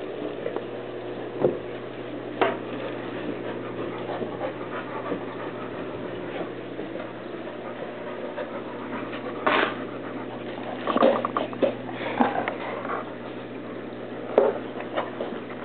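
A dog panting, with a few short, sharp sounds over a steady low hum.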